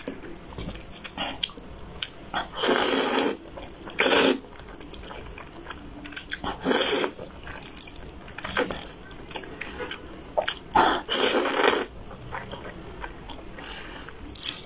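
A person slurping spicy instant noodles in thick sauce: loud slurps every few seconds, each up to about a second long, with wet chewing between.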